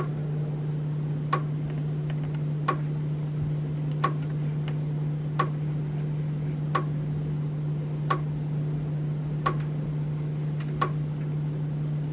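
A sharp click repeating evenly about every second and a third, like a slow clock tick, over a steady low electrical hum.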